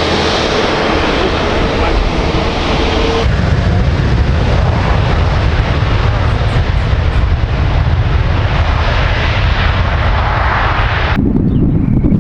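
Airbus A350's Rolls-Royce Trent XWB turbofan engines at takeoff thrust: loud, steady jet engine noise. About three seconds in the sound changes abruptly to a deeper rumble, and about a second before the end it drops sharply to a low rumble.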